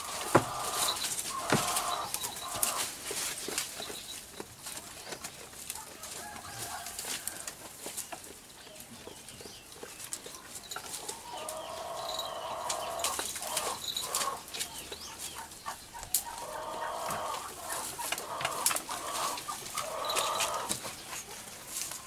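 Chickens clucking on and off in repeated runs, over a scatter of dry crackles and rustles from goats tugging at and chewing cut palm fronds.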